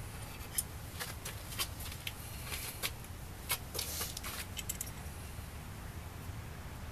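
Light metallic clicks and clinks of an adjustable wrench working a nut and bolt on a steel broadfork's handle socket, a scattered run of sharp ticks that stops about five seconds in, over a steady low background rumble.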